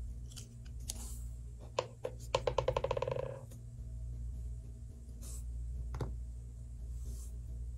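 Clicks of a hard plastic Play-Doh mould being handled, and about two and a half seconds in a plastic piece clattering on the table, its clicks coming faster and faster as it settles. A steady low hum runs underneath.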